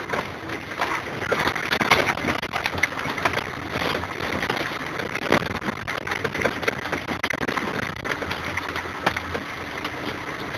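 Noise in the cab of a Jelcz GCBA 5/24 fire engine: a steady rumble under dense, continuous rattling and crackling.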